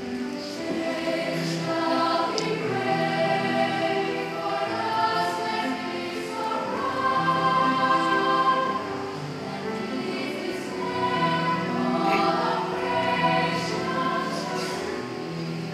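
Children's and teens' choir singing a Christmas carol in several parts, holding long notes, with the voices swelling to their loudest about halfway through.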